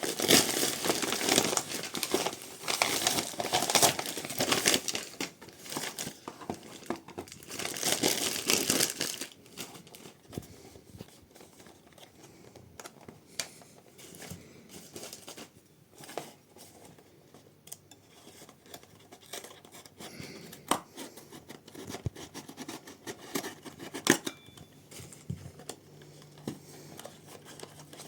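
Plastic and cardboard packaging crinkling and tearing as the charger's box is opened, busy for about the first nine seconds, then quieter handling with scattered clicks and taps.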